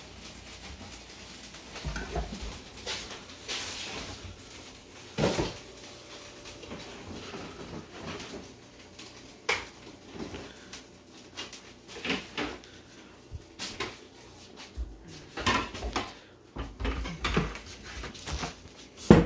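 Hands squeezing and pressing crumbly buttermilk-and-cheddar biscuit dough together in a mixing bowl, with scattered knocks and clatters of the bowl and utensils. This is the stage where the loose dough is brought together by hand with as little kneading as possible.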